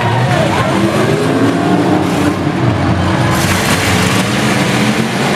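Engines of several demolition derby cars running and revving together.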